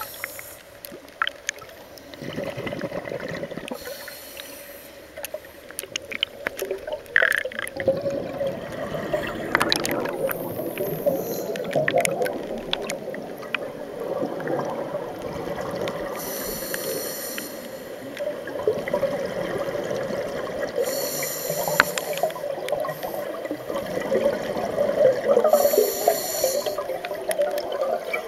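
Scuba diver breathing through a regulator underwater: a steady bubbling rumble of exhaled air, broken by a short hiss every five seconds or so.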